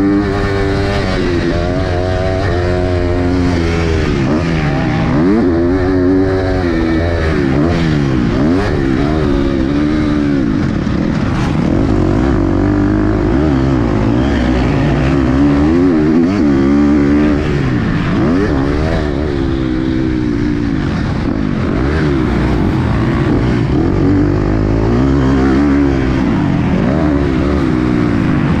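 2023 KTM SX-F 250 single-cylinder four-stroke motocross engine, heard close up on the bike, revving up and falling back again and again as the throttle opens and closes, every second or two.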